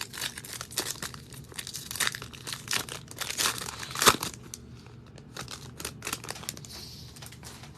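Foil wrapper of a football trading-card pack being torn open and crinkled, a run of crackles with the sharpest tear about four seconds in, fading to lighter rustling near the end.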